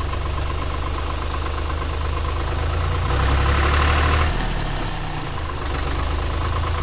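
Fendt 200-series tractor's diesel engine running as the tractor drives, heard from inside its cab. About three seconds in it swells louder for a little over a second, then eases back and runs on steadily.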